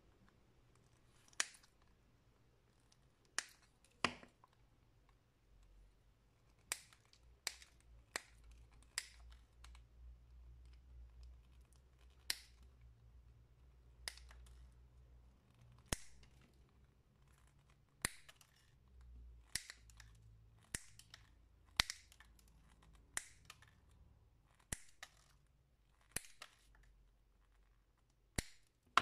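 Diagonal side cutters snipping off the excess component leads on a freshly soldered LED chaser circuit board, each cut a sharp click. About two dozen snips come one at a time at irregular intervals, with faint handling noise between them.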